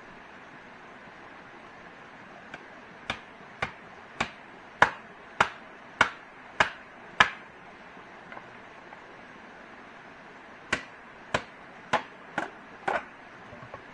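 A hand tool striking wood in steady blows, about one every 0.6 seconds: a run of eight, a pause of a few seconds, then five more.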